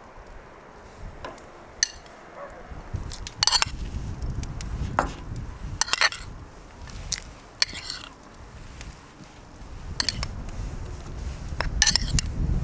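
Metal spoon clinking against a bowl while chopped onion is spooned out of it, a sharp clink every second or two, over a low rumble.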